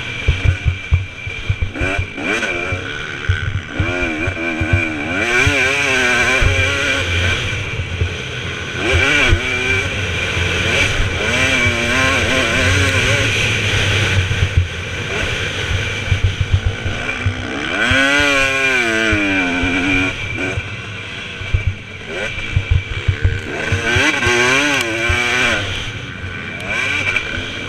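2017 KTM 250 SX two-stroke motocross engine revving hard and backing off again and again as the bike is ridden around a rough dirt track, its pitch climbing and dropping through the gears. Heard up close with wind rushing over the microphone and knocks from the rough ground.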